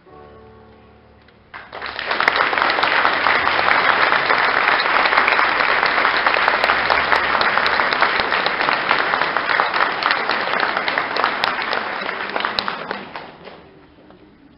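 Audience applause that breaks out suddenly about a second and a half in, holds steady, and dies away near the end, after the faint close of the music.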